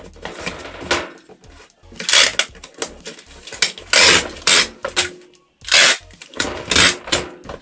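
Packing tape ripped off a handheld tape gun across a cardboard box in several short, loud pulls to seal it, with cardboard flaps being handled and pressed shut in between.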